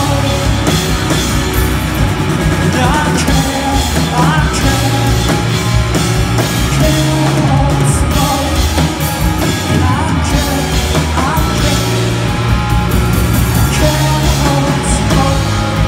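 Live rock band playing at full volume: electric guitars, bass and drums, with a singer singing over them.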